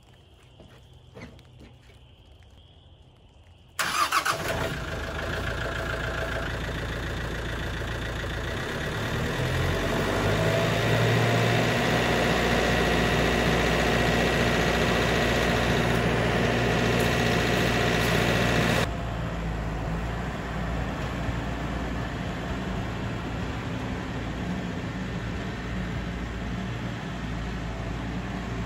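A Kioti compact tractor's diesel engine starting about four seconds in, then running steadily, a little louder for several seconds in the middle. Partway through, the sound changes abruptly to a steady, slightly quieter engine run.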